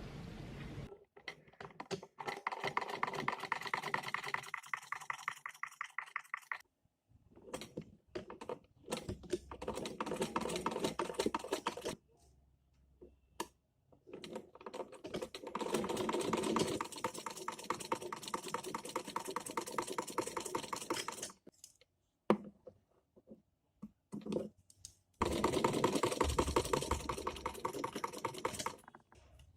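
Rapid, even clicking in four stretches of several seconds each, broken by short pauses.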